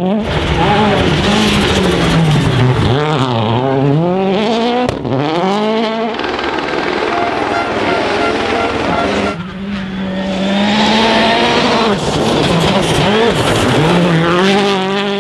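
Rally cars driven hard on a gravel stage, their engines revving up and dropping back repeatedly through gear changes as they pass. Several short passes follow one another with abrupt breaks between them.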